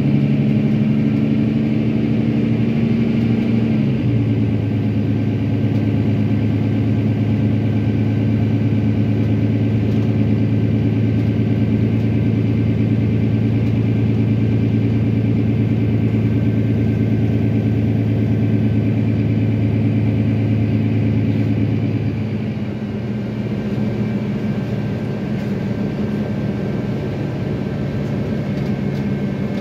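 The Mercedes-Benz Citaro bus's OM906hLA six-cylinder diesel engine running, heard inside the bus cabin as a steady low hum. Its pitch shifts slightly about four seconds in. About twenty seconds later the steady hum gives way to a rougher, slightly quieter engine sound.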